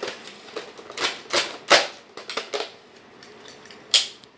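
Hard plastic clicks and knocks of a Nerf Modulus Tri-Strike toy blaster being handled, an irregular string of sharp clicks with a last loud one near the end.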